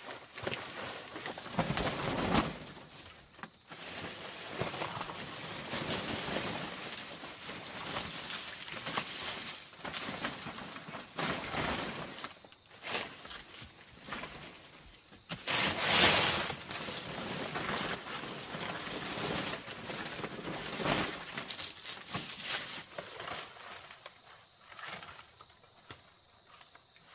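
Irregular rustling, scraping and knocking of hands-on building work with natural materials, with a louder burst of rustling about halfway through; it grows quieter near the end.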